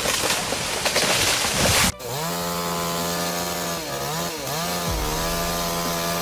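Chainsaw engine running at high revs, holding a steady pitch with three brief dips as the throttle eases. Before it, about two seconds of dense crackling noise that cuts off abruptly.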